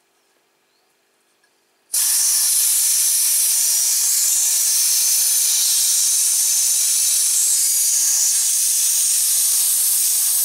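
Compressed air hissing loudly and steadily out of the purge valve at the bottom of a homemade air compressor's tank, an empty propane bottle, starting abruptly about two seconds in: the tank is being vented and its pressure is dropping.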